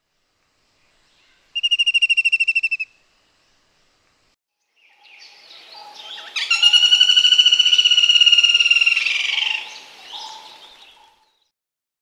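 Two rattling bird calls, each a fast even trill: a short one from a white-throated kingfisher about a second and a half in, then a longer one from a black-rumped flameback woodpecker lasting about three seconds in the second half, over faint background outdoor noise.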